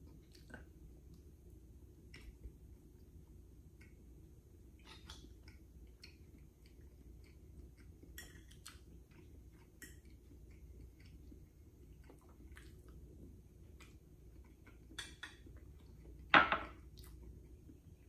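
Quiet eating sounds of soft chocolate cake, with faint scattered clicks, and one sharp clack of metal cutlery on the cake plate near the end.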